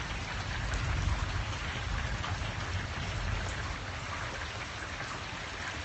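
Steady rain falling, with many small drop ticks close by and a low rumble underneath that slowly eases.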